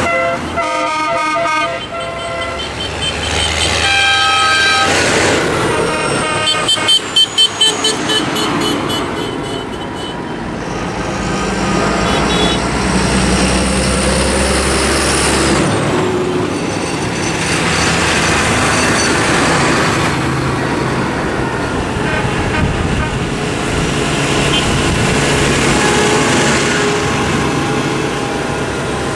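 A procession of tractors and other farm vehicles driving past, engines running and tyres on the wet road. Their horns toot several times in the first ten seconds, including a quick run of short blasts.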